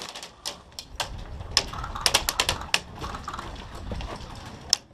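Scattered sharp airsoft shots and clicks at an uneven pace: a few close together near the middle and a stronger snap near the end, over a low rustle of movement.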